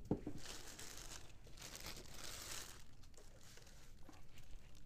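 Clear plastic packaging bag around a sewing machine crinkling and rustling as it is handled, in uneven bursts that are strongest about half a second in and around two seconds in, then die down.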